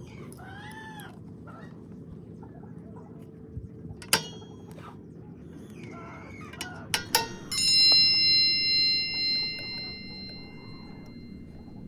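Metal clinks: one about four seconds in and a quick run of them about seven seconds in. Then a metal part rings out with a clear, bell-like tone that fades over about three seconds.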